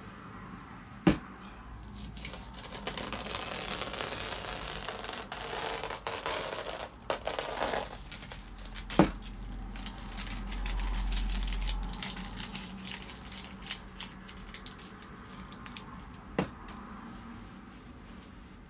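Kitchen paper being torn and crumpled in the hands: a long spell of rustling and crinkling, with a few sharp clicks along the way.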